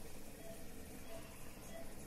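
Steady, even hiss of a ventilator (respirator) used as white noise, with a faint short tone repeating about every two-thirds of a second.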